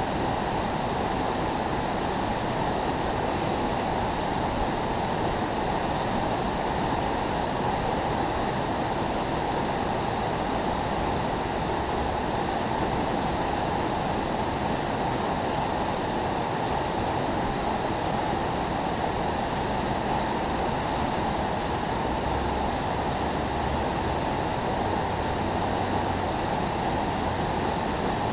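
Steady rush of water pouring through a river spillway, an even unbroken roar.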